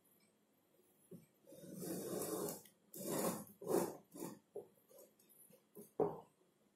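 Marker pen writing on a whiteboard: a longer rub about a second and a half in, then a run of short rasping strokes as numbers are written.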